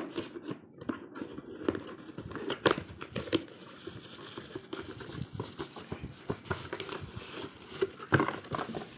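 Close handling noise: irregular crinkling and clicking, with sharper knocks about a third of the way in and again near the end.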